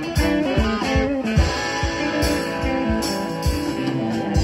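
Live band playing an instrumental passage: electric guitars over bass and a steady drum beat.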